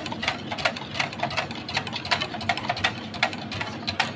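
Wire whisk beating demi-glace powder into stock in a stainless steel pan, the wires clicking against the metal sides in a quick, even rhythm of about five strokes a second.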